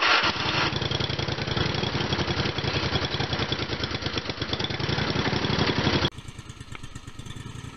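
Lawn tractor engine just started and running with an even, rapid firing beat. About six seconds in the sound drops suddenly to a quieter engine run.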